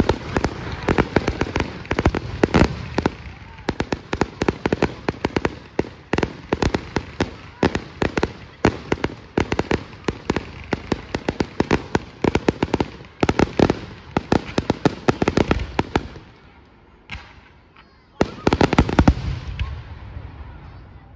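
Aerial fireworks going off in rapid succession, a dense run of sharp cracks and booms for about sixteen seconds. A short lull follows, then another volley of reports near the end.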